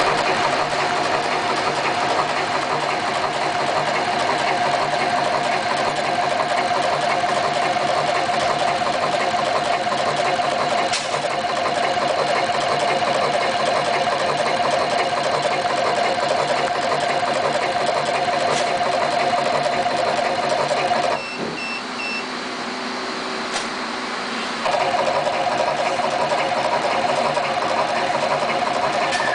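Automatic wire cutting and stripping machine running, its feed rollers and blades cutting thin wire into short stripped pieces in rapid cycles over a steady motor whine. About 21 seconds in the whine stops, a few short beeps sound, and the machine idles more quietly for a few seconds before starting again.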